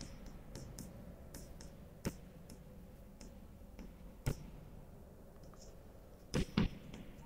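Chalk writing on a blackboard: faint short taps and scratches as letters are formed. There are sharper chalk knocks about two seconds in and about four seconds in, and two close together near the end.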